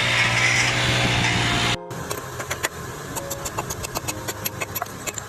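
A motor-driven machine runs steadily with a low hum, then cuts off abruptly about two seconds in. After it, a quick, irregular run of light clicks and taps.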